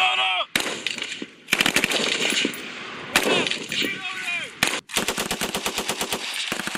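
Bursts of automatic gunfire from rifles and a belt-fed machine gun, ending in a long, evenly paced burst through the last two seconds.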